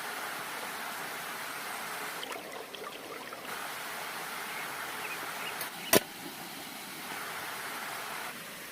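Steady rush of flowing stream water, with one sharp click about six seconds in.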